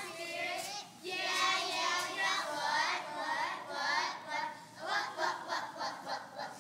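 A group of young girls' voices chanting a cheer together, with a quick run of sharp hand claps in the second half.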